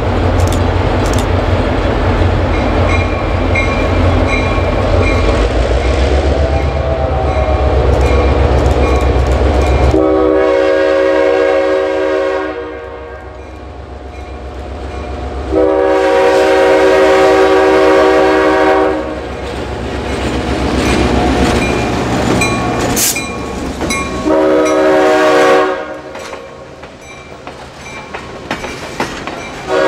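Diesel locomotive running close by with a low, rhythmic rumble, then its multi-chime air horn sounding two long blasts and a short one, with another long blast beginning at the end. This long-long-short-long pattern is the standard grade-crossing warning.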